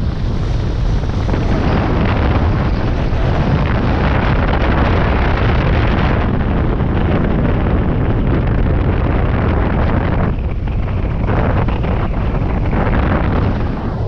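Airflow of a hang glider in flight buffeting the microphone of a camera mounted on the glider: loud, steady wind noise, heaviest in the low end, easing briefly a couple of times in the second half.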